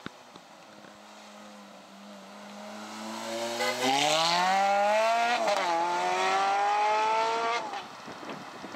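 Ferrari F430 Spider's V8 running low, then revving hard as the car accelerates away, rising in pitch. It drops once about five and a half seconds in at an upshift, climbs again and cuts off abruptly near the end as the driver lifts.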